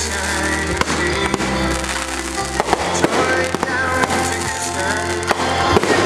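Aerial fireworks going off, with several sharp bangs and crackles at irregular intervals, over music that plays steadily underneath.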